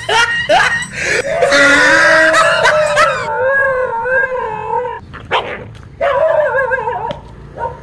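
Dog yelping, then giving long wavering howls twice, alarmed at the toy tiger attacking it.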